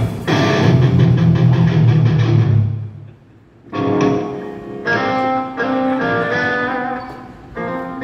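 Electric guitar through a stage amplifier at a band soundcheck: a low chord struck and left to ring for about three seconds until it dies away, then a run of held chords that change about once a second.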